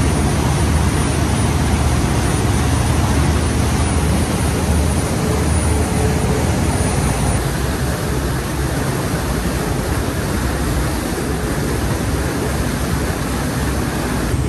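Cruise boat's engine running steadily under way, a low drone under the rushing wash of the wake and spray along the hull.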